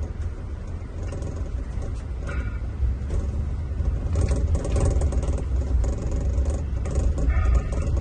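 Scania-engined Marcopolo Paradiso 1800 DD G7 double-decker coach under way, heard inside the cabin as a steady low rumble of engine and road, with short interior rattles and clicks that grow more frequent after about four seconds.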